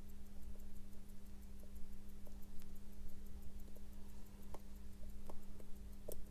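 Faint, irregular small clicks of steel tweezers touching the balance jewel's shock spring and its setting as the spring is worked into place, with a sharper click near the end. A steady low hum runs underneath.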